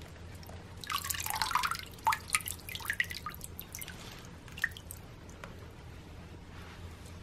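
Water splashing as a small model submarine is worked in and out of a tub of water by hand, followed by a run of drops dripping off it back into the water. The splash comes about a second in, and the drips trail off by about halfway through.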